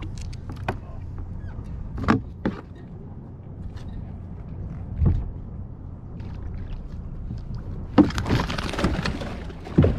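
A few scattered knocks of gear against the kayak, then, about eight seconds in, loud, sustained splashing as a tuna thrashes at the surface while it is hand-lined up to the kayak.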